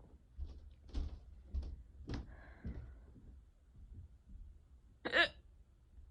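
A person hiccuping: one loud, short voiced hiccup about five seconds in, after a few softer, fainter sounds.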